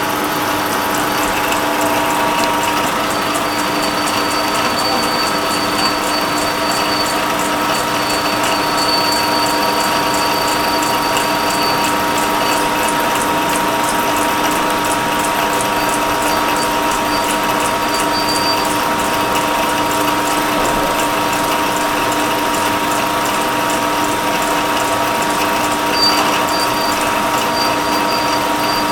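CNC milling machine running: a steady mechanical whir holding several fixed tones, with a fast, even ticking and a high whine that fades out and returns a few times.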